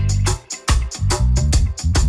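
Background music: a steady drum beat, about four strokes a second, over heavy bass.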